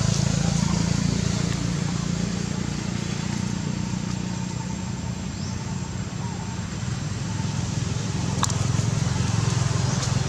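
A motor's steady low hum under a constant hiss, with one sharp click about eight seconds in.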